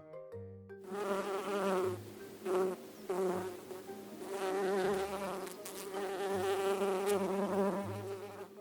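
Bee buzzing: a wavering hum that starts about a second in and swells and fades in loudness.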